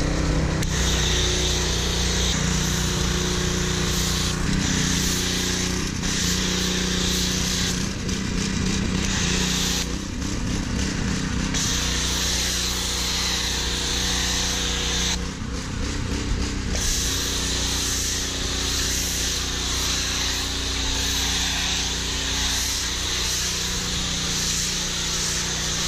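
Pressure washer running with a foam cannon attached, a steady hiss of spraying foam over the machine's hum. The spray stops briefly twice, about ten and fifteen seconds in, when the trigger is let off.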